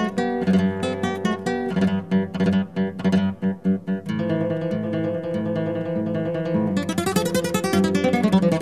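Acoustic guitar music: quick plucked notes at first, then held chords from about four seconds in, with a rapid run of notes near the end.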